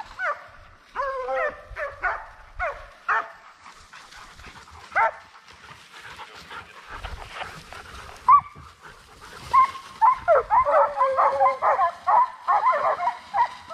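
A pack of deer-hunting hounds bawling as they run a deer's track. There are scattered single cries at first, and from about ten seconds in several dogs give tongue together, louder and almost without a break, as the pack closes in.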